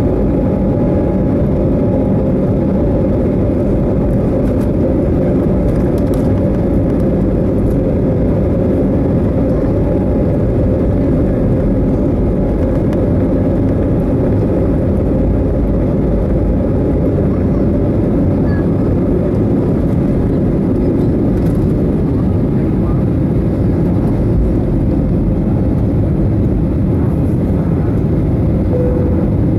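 Airbus A320neo's jet engines at takeoff thrust, heard from inside the cabin over the wing: a loud, steady rush with a faint whine, through the takeoff roll and lift-off.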